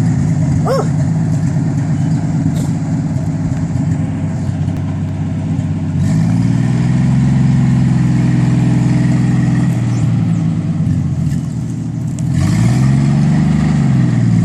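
Forklift engine running steadily, revving up about six seconds in, then dipping and revving up and back down again near the end.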